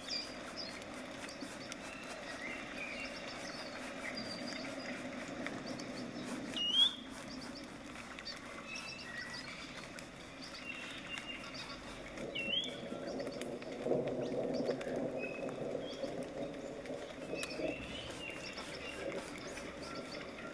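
Flat bristle brush stroking acrylic paint back and forth across a stretched canvas, a soft continuous brushing, with birds chirping in the background and a few rising chirps standing out.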